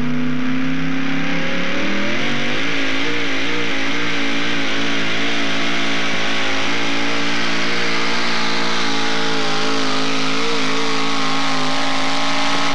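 Modified four-wheel-drive pulling truck's engine at full throttle, pulling the sled. It revs up about two seconds in, then holds at high revs with a slight waver.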